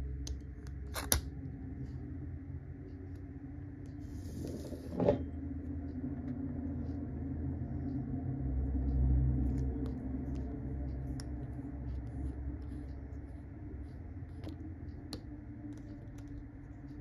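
Low steady hum, swelling briefly in the middle, with scattered small clicks and taps from plastic and metal fountain-pen parts being handled. The sharpest tap, with a short hiss, comes about five seconds in.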